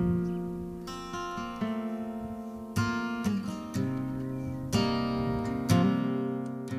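Background music: acoustic guitar strumming and picking chords at a relaxed pace.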